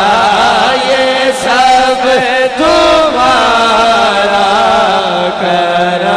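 A man's voice chanting a devotional naat in long, wavering melodic phrases with held notes, amplified through a microphone.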